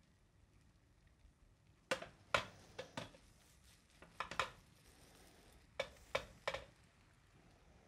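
Frying pan and rubber spatula knocking and scraping as setting eggs are pushed into the centre of the pan: a string of short, sharp knocks in three bursts.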